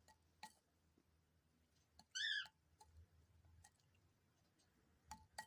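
Faint sharp clicks of a dove pecking at grit, with one short, high, wavering call about two seconds in.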